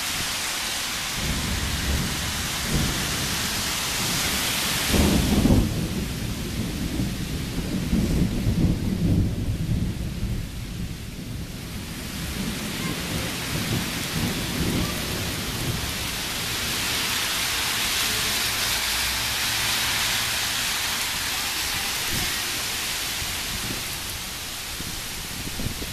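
Heavy thunderstorm rain pouring steadily on the street. A loud rumble of thunder breaks about five seconds in and keeps rolling until about twelve seconds, then the rain hiss swells again.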